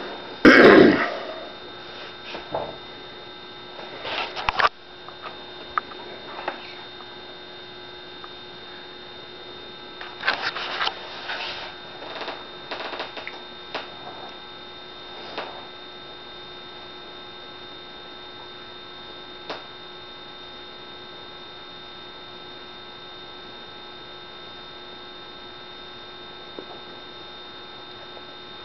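Steady electrical hum made of several fixed tones. A loud short noise comes just after the start, and a few brief quieter noises follow over the next quarter minute or so before only the hum is left.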